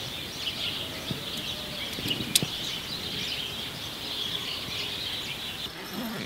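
Night-time chorus of insects chirping continuously in many overlapping high calls, with one sharp click about two and a half seconds in; the chorus cuts off shortly before the end.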